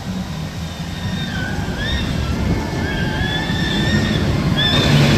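Roller coaster ride noise: a rushing, rumbling din that grows louder, with a few high wavering squeals over it.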